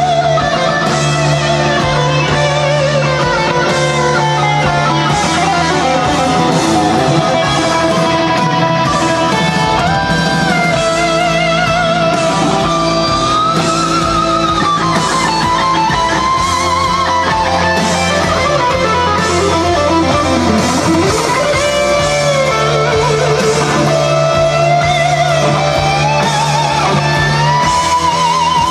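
Guitar music: a melody line that bends and wavers in pitch over steady bass notes.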